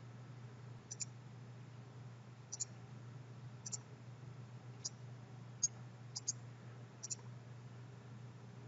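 Computer mouse buttons clicking: about eight short, sharp clicks roughly a second apart, one of them a quick double click. A faint steady low hum runs underneath.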